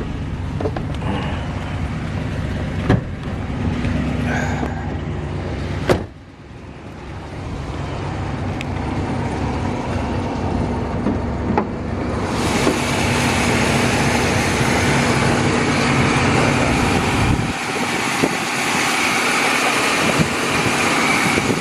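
1984 Pontiac Parisienne wagon on the move: the engine runs with two sharp clicks in the first six seconds, then road and wind noise swells from about twelve seconds in.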